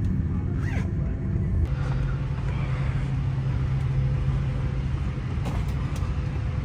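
Steady low rumble of a vehicle running, with a steady low hum joining about two seconds in.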